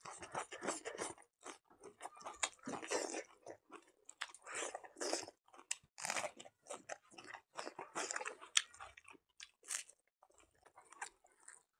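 A person chewing and crunching mouthfuls of rice, pork and raw leafy greens, in an irregular run of short chews and crunches.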